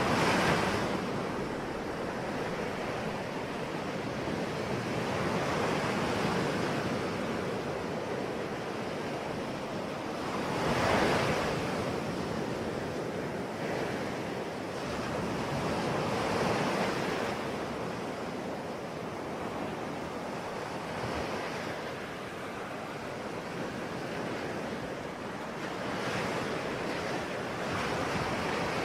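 Ocean waves breaking and washing up on the shore, a wave surging in roughly every five seconds, the largest near the start and about eleven seconds in.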